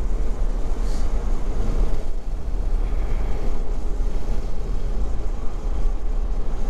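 Steady low wind rumble and road noise in the open cockpit of a Honda S660 Modulo X Version Z cruising with its roof off.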